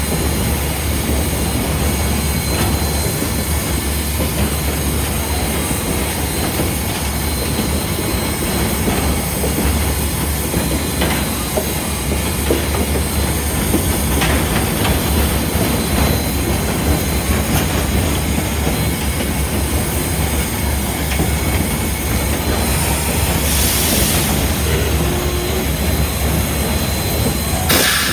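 Steady running noise inside the cab of Southern Railway 4501, a 2-8-2 Mikado steam locomotive under way, with a deep rumble and a thin steady whine over it. A short burst of hiss comes about three-quarters of the way through and another near the end.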